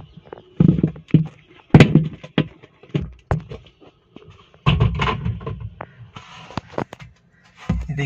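Irregular thuds and knocks of a hand pressing a new rubber buffer seal down into a washing machine's plastic spin-drum tub to seat it. The loudest knock comes about two seconds in, with a rougher stretch of knocking around the middle.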